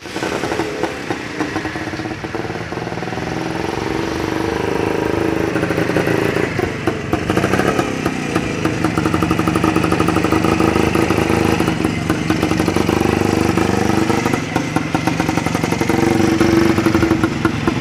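Restored 1974 Rajdoot (WFM-type) motorcycle's two-stroke single-cylinder engine running as the bike rides slowly along. It gets steadily louder over the first several seconds as it comes up alongside, and the pitch rises and falls a little with the throttle.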